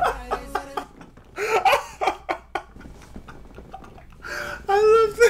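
A man laughing in short, uneven bursts.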